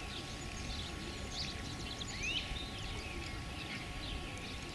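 Wild birds chirping and singing, with one clear rising call about two seconds in, over a low steady outdoor background noise.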